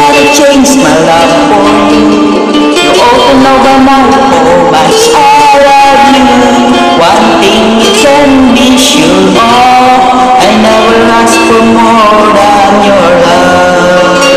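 A song: singing over an instrumental backing track.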